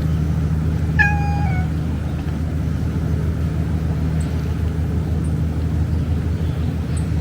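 A domestic cat meows once, about a second in: a short call that drops in pitch at its end, over a steady low rumble.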